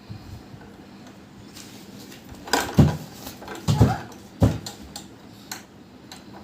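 Handling noise: a few sharp knocks and clatters of small hard objects being picked up and set down, grouped in the middle, with a fainter knock a little later.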